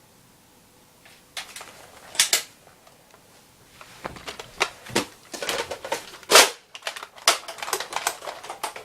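Toy Nerf blasters being primed and fired: a quickening run of sharp plastic clacks and snaps, with the loudest snap about six seconds in.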